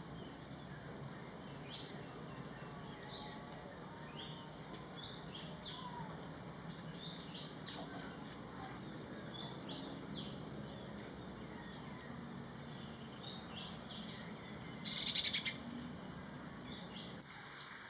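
Common iora calling: short, high chirping notes repeated every second or two, with a briefer, harsher buzzy note near the end.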